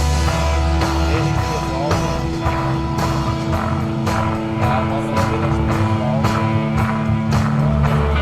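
Live instrumental desert rock from an electric guitar, bass and drum kit trio: long held guitar and bass notes over a steady drum beat.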